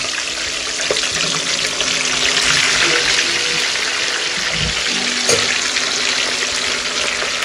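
Oil in a frying pan sizzling steadily as pieces of marinated fish are laid in to deep-fry.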